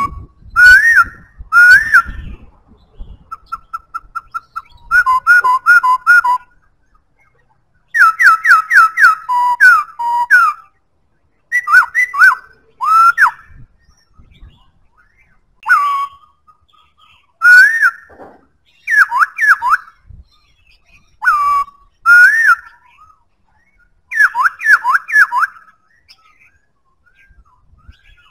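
Black-throated laughingthrush singing: loud, clear whistled phrases of quick notes that slide up and down, each phrase a second or two long with short pauses between.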